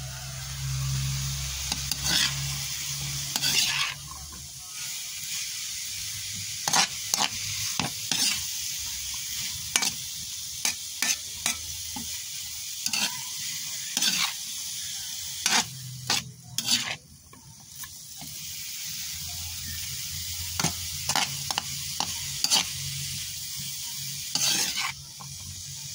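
Sliced bitter gourd (ampalaya) sizzling as it fries in a metal pan, with a steady hiss. A cooking utensil scrapes and clacks against the pan in irregular clusters of sharp strokes as the gourd is stirred.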